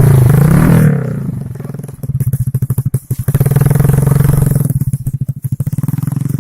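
A small engine, started moments before, running close by with a rapid even putter; it revs up and back down in the first second, settles, then revs again from about two seconds in and eases off near five seconds.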